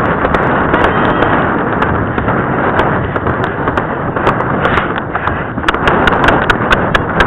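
A horse's hoofbeats on a grass and dirt track, under a steady rush of wind noise on a camera carried on horseback, with sharp clicks scattered throughout.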